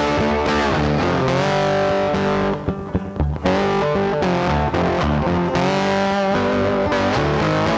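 Background music led by guitar, with sustained chords that change every second or so; it briefly thins out about three seconds in, then carries on.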